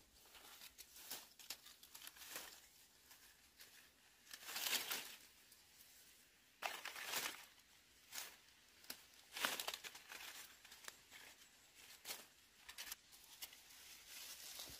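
Irregular rustling and crinkling from something being handled, with a few louder tearing rustles about four and a half, seven and nine and a half seconds in.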